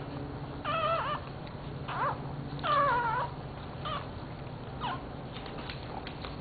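Newborn puppy crying in short, high-pitched squeals, about five of them, the longest and loudest about three seconds in.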